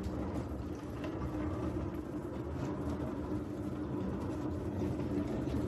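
Wheels of a wooden serving cart rolling across a hardwood floor: a steady low rumble.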